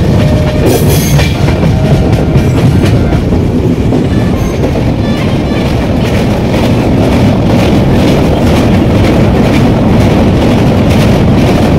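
Swaraj Express passenger train running at speed: a loud, steady rumble of steel wheels on the rails, with the clatter of the wheels over the track running through it.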